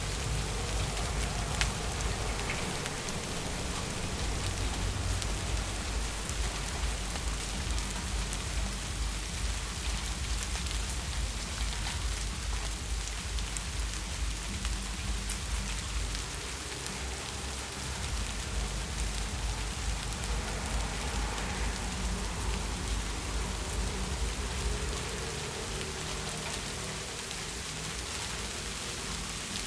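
Heavy rain falling steadily, a dense even hiss of drops on hard surfaces with a low rumble underneath.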